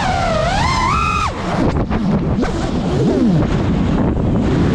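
Brushless motors and propellers of a 5-inch FPV quadcopter, heard through its onboard GoPro. The whine rises and falls with the throttle: it drops low a little over a second in, wavers there, and climbs again near the end. Heavy wind rumble on the microphone runs underneath.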